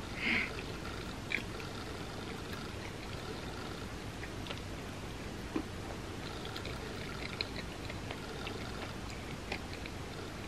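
Faint chewing and mouth sounds of someone eating a cinnamon roll topped with M&M's, with scattered small clicks over a steady background hiss.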